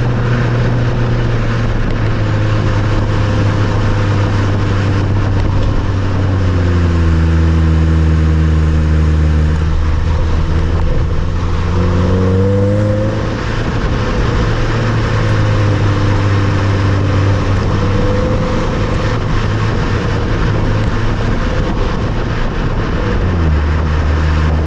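Nissan Note Nismo S 1.6-litre four-cylinder running through its Nismo titanium muffler while driving, with steady tyre and road noise beneath. The revs fall about six seconds in and climb again around twelve seconds, then keep rising and easing.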